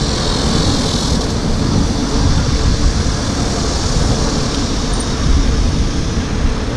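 Wind rumbling steadily over the microphone of a camera on a moving road bicycle, mixed with tyre noise on a wet road.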